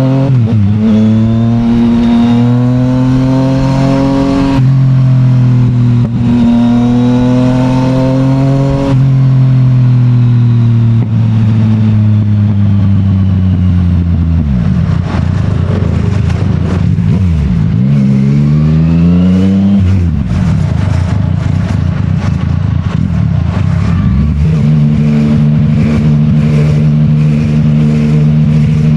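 Yamaha MT-09's CP3 inline three-cylinder engine through an Akrapovic full titanium exhaust, heard from the bike while riding. It pulls up through two gear changes in the first nine seconds, winds down on a long fall in revs, dips and climbs briefly a few times around the middle, then runs at a steady cruise.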